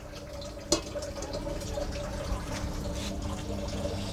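Metal cookware clanks once about a second in, then a steady low rushing sound comes from a small gas stove with a metal pot on it.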